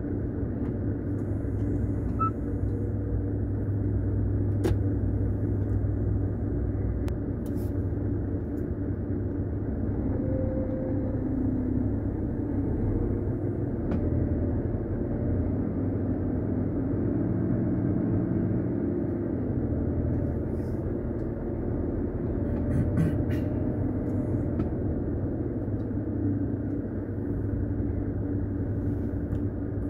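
Heavy truck's diesel engine and tyre noise heard from inside the cab while driving at steady motorway speed, a continuous low rumble.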